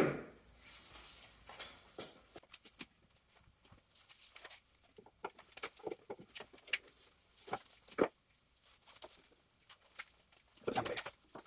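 Scattered light clicks and taps of a ratchet strap's metal hook and buckle being handled as the strap is fitted around a cedar-strip kayak hull, with one sharper click partway through and a quick run of clicks near the end.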